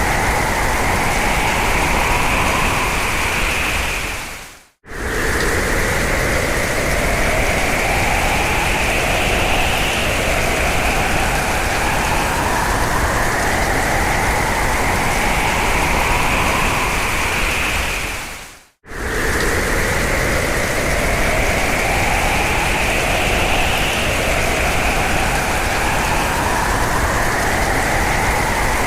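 Strong hurricane wind rushing, with a whistling howl on two pitches that slowly rises and swells. Twice it fades quickly to silence and comes straight back, about fourteen seconds apart, where the recording loops.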